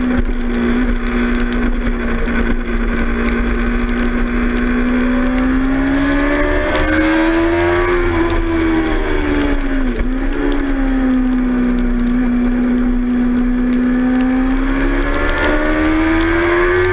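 2006 Suzuki GSX-R 600's inline-four engine running hard at racing speed. Its note holds steady, climbs about six to eight seconds in, dips briefly around ten seconds, then holds again and climbs near the end.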